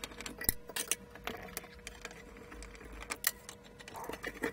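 Scattered sharp clicks and light knocks of metal parts and tools being handled as the cast-aluminium front panel is taken off an electronics box.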